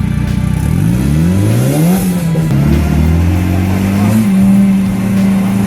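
Off-road 4x4's engine revving up sharply over about a second and a half, then held at steady high revs with small rises and dips.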